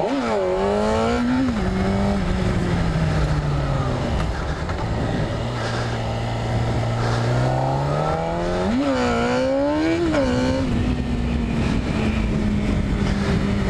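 Sport motorcycle's engine accelerating through the gears: the pitch climbs and drops back at each shift, several times over, with a steady lower stretch near the middle, over wind noise.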